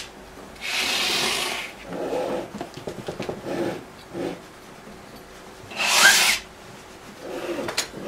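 Oil paint being rubbed and scraped onto a stretched canvas, with two longer rasping strokes, about a second in and about six seconds in, and fainter scratchy strokes between them.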